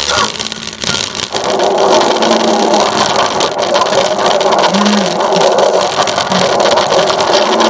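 A steady, engine-like grinding sound effect that sets in about a second in and runs on without a break.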